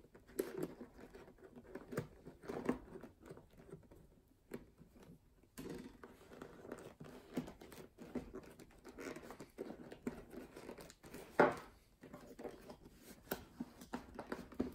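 Hands working a leather boot: the laces rustle as they are loosened, then a wooden boot stretcher with a threaded metal shaft is pushed down into the boot, with soft rubbing, scraping and small irregular knocks. One sharper knock comes about eleven seconds in.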